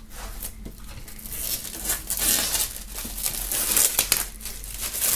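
Plastic shrink-wrap film crinkling and rustling as it is pulled off a cardboard box.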